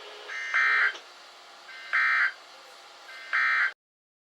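NOAA Weather Radio EAS/SAME end-of-message (EOM) data bursts, sounding three times about a second and a half apart over a steady radio hiss. They mark the close of the Required Weekly Test broadcast. The sound cuts off sharply just after the third burst.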